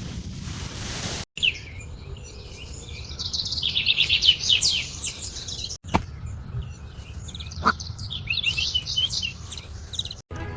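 Birds chirping in quick runs of high notes over a low steady background noise, broken by brief cuts to silence.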